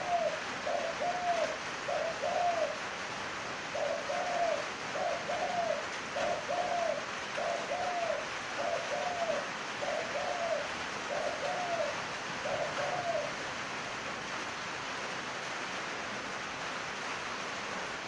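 Spotted dove (chim cu gáy) cooing: a string of short, arched coos about one every two-thirds of a second, with a brief pause about three seconds in, stopping about thirteen seconds in. A steady hiss lies underneath.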